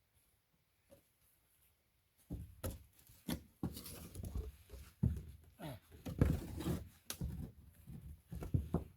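Irregular footsteps scrambling and crunching through leaves and brush on a steep slope, with heavy breathing, starting about two seconds in after a near-quiet moment.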